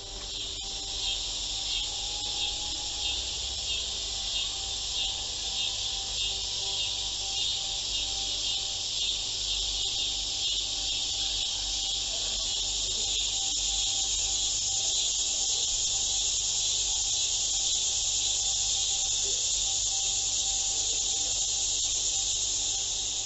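Crickets chirring on a background soundtrack: a steady, high-pitched shrill with a quick pulse, growing a little louder about halfway through, over faint held music tones.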